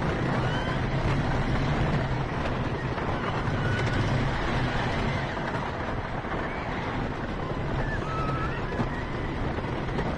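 Onboard a wooden roller coaster train running along the track: a steady rumble of the cars on the wooden track mixed with heavy wind noise on the microphone.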